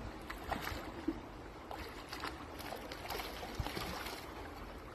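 River water running and splashing, with scattered small splashes and knocks.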